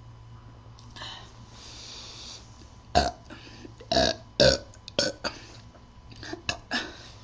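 A man burping repeatedly: about eight short, loud burps in quick succession from about three seconds in, after a breathy noise.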